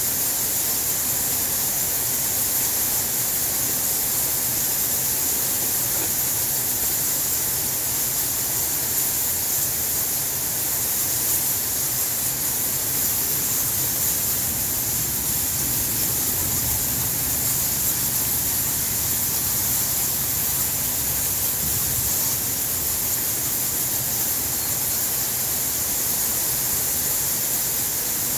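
Steady high-pitched hiss with no separate events.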